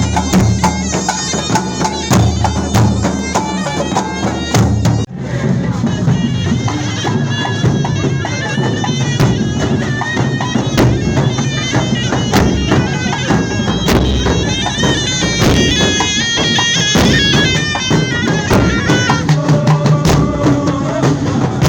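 Live traditional Tunisian procession music: a loud reedy wind instrument plays a wavering, ornamented melody over fast, dense drumming. About five seconds in there is a sudden brief break, where the recording cuts.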